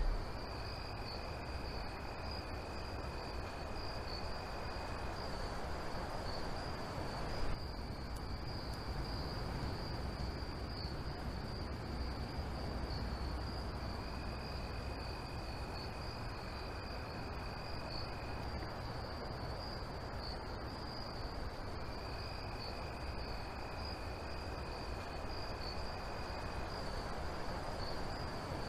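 Crickets chirping steadily in a night ambience, a continuous high thin trill. A lower, fainter tone joins it three times, each time for about four seconds.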